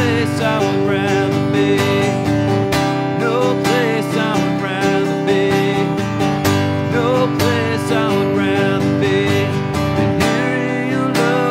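Acoustic guitar strummed steadily in a slow worship song, with a man's voice singing along in places.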